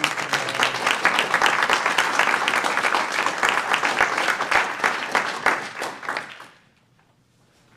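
Audience applauding, dense clapping that dies away about six seconds in.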